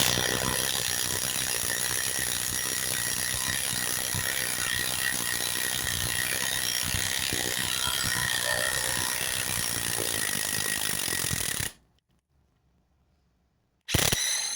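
DeWalt DCF921 Atomic 1/2-inch cordless impact wrench hammering continuously on speed setting 2 against a seized, rusted bolt. It stops about twelve seconds in, then gives one short burst near the end.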